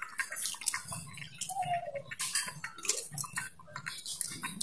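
Wooden spatula stirring a peanut-thickened stew in a metal pot, clicking and knocking irregularly against the pot's sides and bottom.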